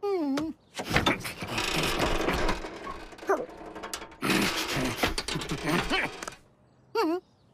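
Cartoon sound effects: a pug's short gliding vocal sounds at the start and again near the end, with two long stretches of rattling, clattering mechanical noise between them.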